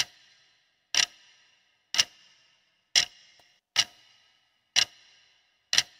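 Clock-tick sound effect marking a quiz countdown: a sharp tick about once a second, each followed by a short ringing tail.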